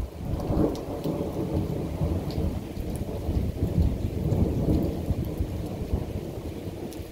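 Thunder rumbling in long low waves, loudest about half a second in and again around four seconds, easing toward the end, with rain falling.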